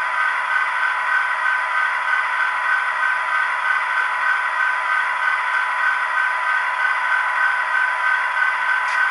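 Soundtraxx Tsunami sound decoders in HO-scale model diesel locomotives playing diesel engine idle sound through their small onboard speakers: a steady, thin drone with no bass and a rapid pulsing.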